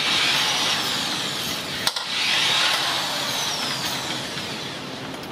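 Cordless power driver with an 8 mm socket whirring as it turns out a screw threaded into a plastic pan. It runs in two long stretches with a short break and a click about two seconds in.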